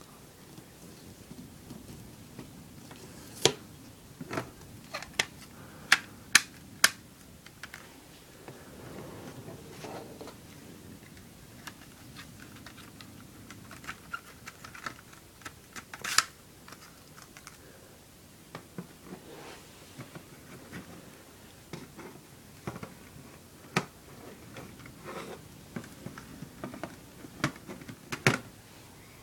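Plastic CD jewel case and its paper booklet being handled: sharp clicks and snaps of the case, a quick run of about six a few seconds in and single ones later, between soft paper rustling.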